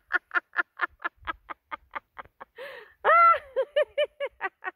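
A woman laughing hard in a laughter-yoga exercise: quick rhythmic "ha-ha" pulses that slow down, a breath drawn in past the middle, then a long loud peal and another run of pulses.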